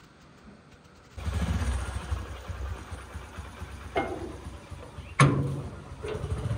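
Motorcycle engine idling steadily, beginning about a second in. Over it, a knock and then a loud metallic bang of a steel sheet-metal gate being handled.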